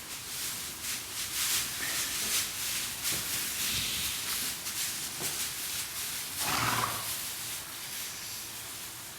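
A horse close by, with rustling and movement throughout and one short, louder snort about six and a half seconds in.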